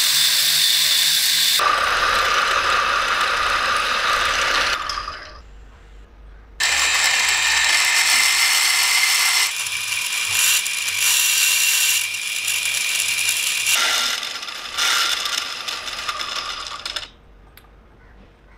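Workshop machinery or a power tool running on metal, heard as a string of short clips that start and stop abruptly. There is a quiet gap about five seconds in, and the noise dies down shortly before the end.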